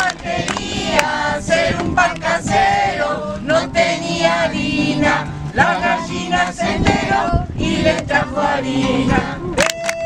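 A group of children and adults singing together in Spanish, accompanied by a strummed acoustic guitar.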